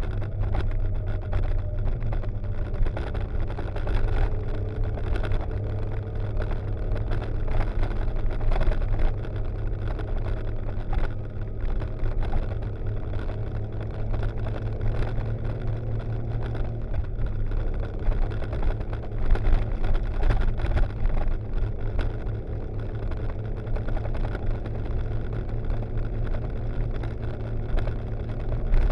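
Motorcycle engine running at a steady cruise, with wind rushing and buffeting over the microphone.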